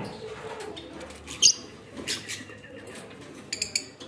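Blue Fischer's lovebirds giving short, high, squeaky chirps: one sharp chirp about a second and a half in, and a quick run of several near the end.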